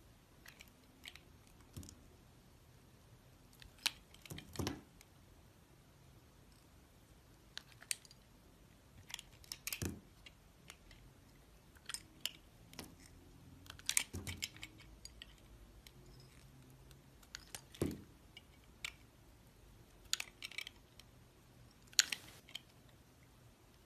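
Blade cutting and carving a bar of soap: scattered crisp crunches and short scrapes, with a few heavier knocks spread through.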